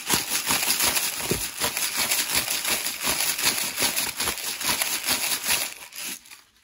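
Salt crackling and scattering as it is rubbed between fingers into a blender jar: a dense, crisp rustle that dies away about six seconds in.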